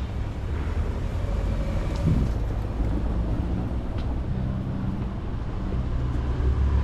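Outdoor city street ambience: a steady low rumble of traffic and wind on the microphone, with a couple of faint ticks.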